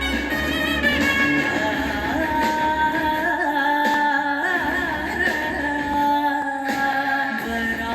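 A song playing: a singer's voice over instrumental backing, steady throughout.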